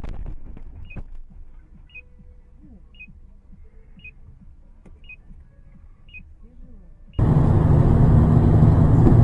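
A car crash impact at the start, then a short high beep repeating about once a second for several seconds. About seven seconds in, it gives way abruptly to loud steady road and engine noise from inside a moving car.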